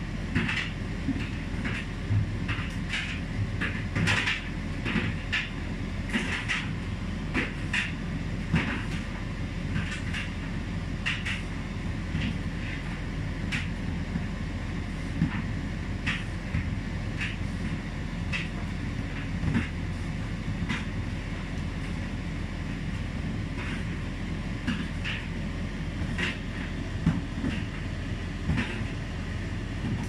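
Hotpoint Aquarius TCL770G condenser tumble dryer running in its cool-tumble stage, the drum turning without heat: a steady low hum with irregular light clicks and knocks throughout.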